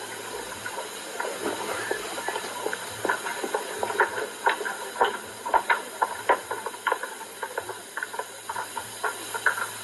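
Hissy old film soundtrack with a steady low hum and scattered irregular knocks and clicks, several a second.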